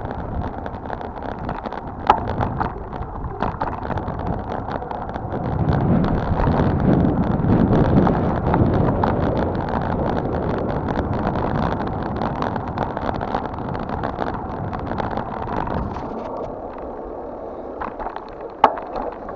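Wind rushing over the microphone of a camera riding on a moving mountain bike, with tyre rumble and small rattles from the bike over the road. The rush swells for a few seconds in the middle, and two sharp knocks stand out, about two seconds in and near the end.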